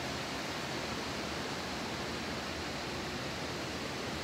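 Steady, even hiss of background noise, unchanging throughout.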